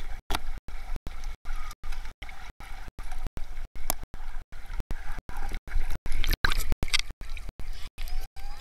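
Muffled water gurgling and sloshing heard from underwater in a swimming pool, chopped by short regular dropouts about four or five times a second.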